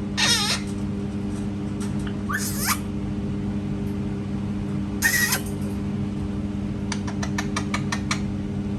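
Parrot giving three short, harsh calls a couple of seconds apart, followed near the end by a quick run of clicks, over a steady low hum.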